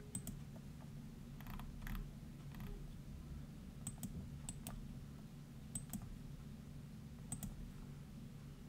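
Computer mouse button clicks, several coming in quick pairs, scattered through a few seconds over a faint steady low hum.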